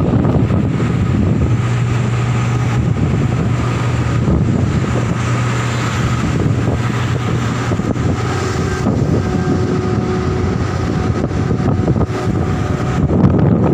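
Heavy diesel machinery running at a steady hum, under gusting wind noise on the microphone. The hum is strongest in the first half.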